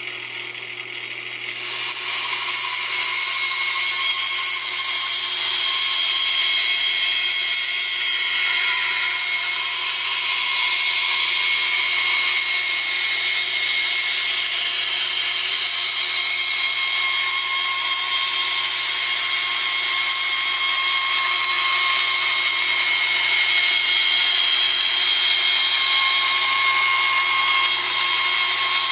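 Small benchtop bandsaw ripping a length of PVC pipe lengthwise in half. The saw is already running at the start, and the sound gets much louder about two seconds in as the blade bites into the plastic. It then holds as a steady, high-pitched whine.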